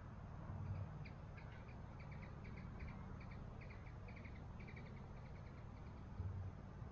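A small bird chirping in a quick series of short notes, about three a second, over a faint steady outdoor rumble. Two brief low hums stand out, one shortly after the start and one near the end.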